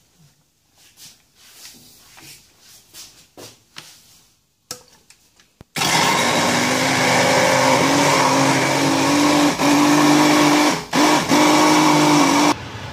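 Philips hand blender switched on about halfway in, its motor running steadily as it purées chopped tomatoes in its plastic beaker, dipping briefly twice, then cut off just before the end. Before it starts, faint knocks of the blender being set into the beaker.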